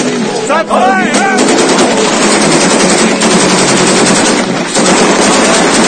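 Automatic rifle fire, rapid and near-continuous, from about a second and a half in, after a man's shout at the start.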